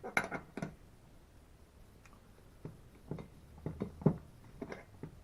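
Hand tools being handled during a chainsaw teardown: about ten light, irregular clicks and knocks, with a quiet gap in the first couple of seconds.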